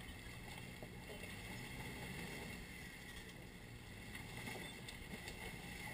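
Jeep Wrangler's engine running at low revs as it crawls up a steep rocky slope, faint and steady.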